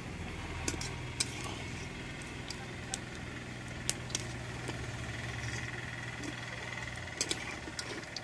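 Chana dal fritters sizzling in hot oil in a metal kadai, with several sharp clinks as a metal strainer and spatula knock against the pan.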